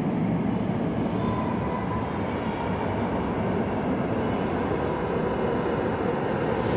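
New York City subway train rumbling through the tunnel in an underground station, a steady rumble throughout.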